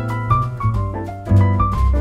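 Background music: an instrumental jazz piece led by piano over a bass line, with light drums.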